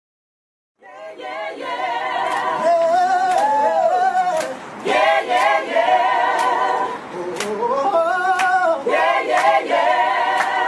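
A group of young men and women singing loudly together in unison, with sharp claps about twice a second, starting about a second in.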